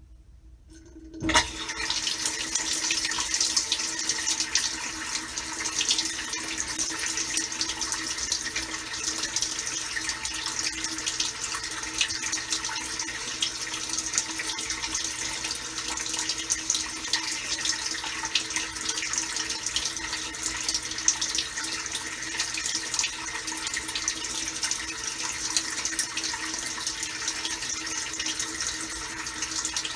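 Samsung Waterwall dishwasher running a wash: water spraying and splashing inside the tub over a steady pump hum, starting suddenly about a second in.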